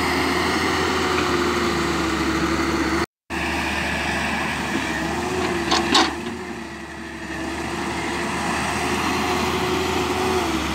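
Halla 130 wheeled excavator's diesel engine running steadily with a constant hum. The sound drops out briefly about three seconds in, and a short sharp clatter comes just before six seconds, after which the engine sound dips for a moment and then returns.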